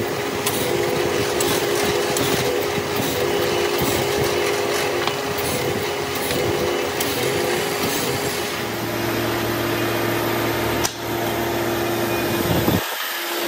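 Drill press motor running steadily while its bit grinds through a truck brake lining, with a gritty scraping of the friction material as the holes are drilled. About nine seconds in the gritty cutting noise thins while the motor hum carries on.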